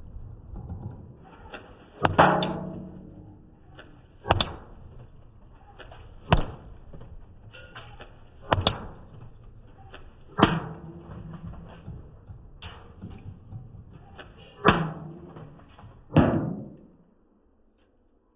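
Electric airsoft AK rifle firing single shots on semi-auto, about one every two seconds, each a sharp crack with a short ring. Some shots are louder than others.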